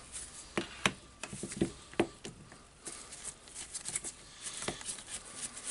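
Scattered light clicks and taps, irregularly spaced, from hands handling a cordless drill on a workbench.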